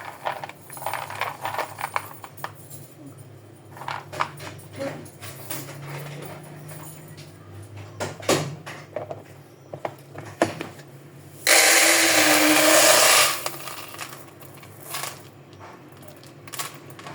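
Plastic storage containers and their lids clicking, tapping and clattering as groceries are put away, with a loud rush of about two seconds near the end.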